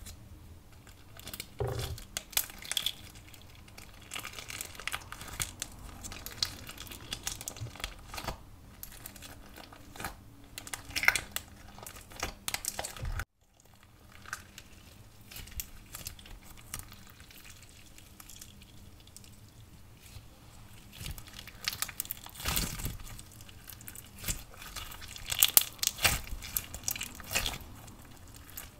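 Clear slime with pearl beads and sprinkles squeezed, stretched and poked by hand, giving many small crackles and clicks. It breaks off for a moment about halfway, then carries on with louder bursts of crackling near the end.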